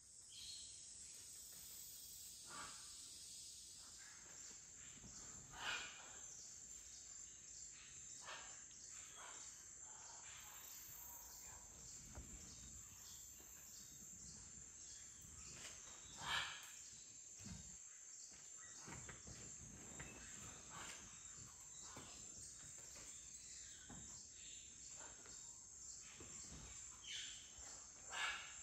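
Steady high-pitched insect chorus of the Amazon rainforest, broken by scattered short sounds, three of them louder than the rest.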